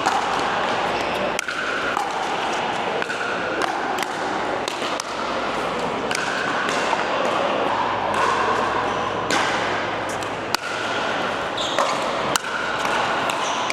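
Pickleball paddles striking the ball in a rally: a string of sharp pops at irregular intervals, some louder and some fainter, over a steady din of background noise.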